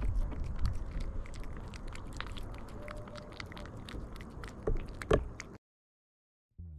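A cat crunching and chewing food, a dense run of small crisp crackles with two louder crunches about five seconds in. The sound then cuts off suddenly into silence, and music begins just before the end.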